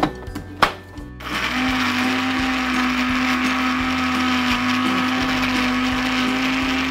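Electric mixer-grinder switched on about a second in, after two short knocks, then running steadily at one constant pitch as it grinds a yogurt and mint chutney.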